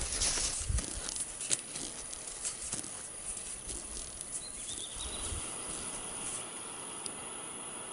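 Short skis, plastic mountaineering boots and ski-pole tips crunching and scraping in granular spring snow as a skier steps uphill close by. The sound is loud and irregular at first, thins out to scattered crunches after a couple of seconds, and there is a soft thump about five seconds in.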